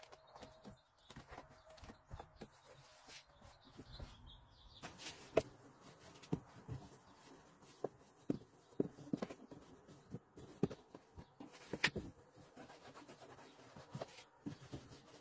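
Faint, irregular rubbing and light clicks of a cloth being wiped by hand over a car's plastic interior door panel.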